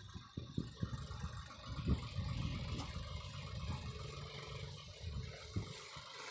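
John Deere tractor's diesel engine running while the hydraulic front loader raises its brick clamp, with an irregular low rumble and a faint steady whine.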